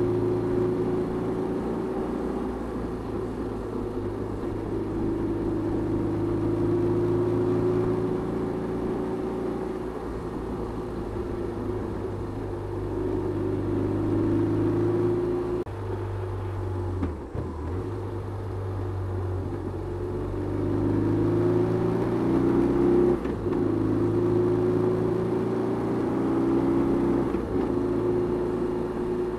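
2008 BMW R1200RT's air/oil-cooled boxer-twin engine running under way, heard from the rider's seat. Its pitch sags a little past the middle, then climbs back up, with a couple of short dips near the end.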